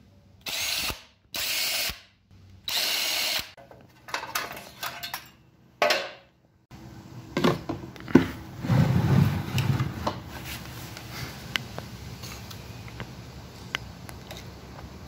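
Power drill spinning out the bolts of a Predator 212 engine's flywheel cover in three short runs, followed by metallic clicks and clattering as parts are handled.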